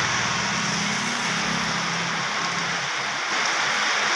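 Steady rain, with a low hum that fades away about two seconds in.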